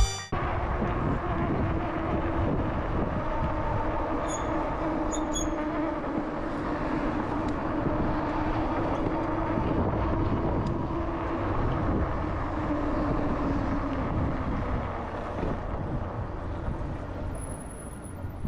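Steady road noise of riding an electric fat-tire bike on a city street: tyre and traffic rumble with a steady low hum through most of it, easing off near the end.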